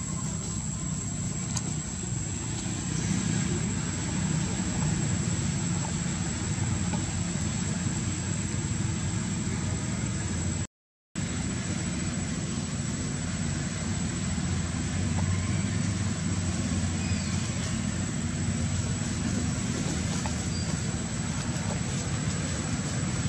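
Steady outdoor background rumble, low and even, with a thin constant high whine over it. The sound cuts out completely for about half a second near the middle.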